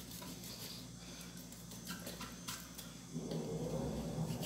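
Faint clicks and scrapes of a knife cutting through the leg joints of a raw chicken at a stainless steel sink. About three seconds in, a low droning hum rises and holds steady.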